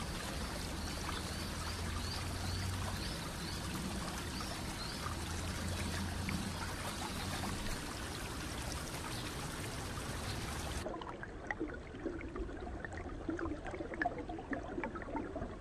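Water running and trickling in a small village channel, a steady even rush. About eleven seconds in it changes abruptly to a quieter, duller water ambience with faint ticks.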